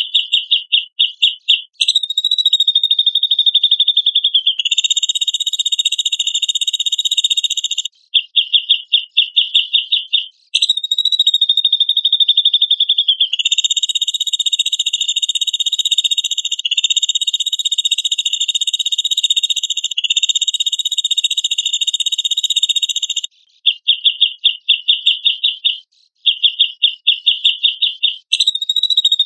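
Cucak jenggot (grey-cheeked bulbul) calls in a repeating training track. Rapid chattering runs of about nine notes a second alternate with long, even, buzzing trills of two to three seconds, several trills back to back.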